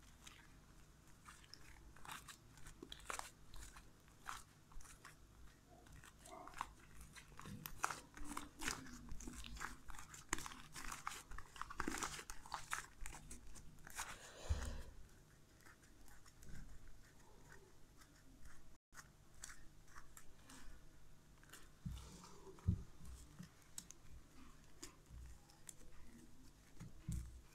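Freshly mixed homemade white slime being kneaded and pulled by hand on a tabletop: faint, irregular sticky squelches and small crackling pops as the wet mass is squeezed and torn apart.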